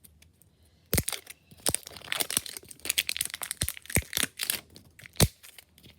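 Plastic wrapping of a toy surprise ball being crinkled and torn open by hand, with a string of sharp clicks, the loudest about five seconds in.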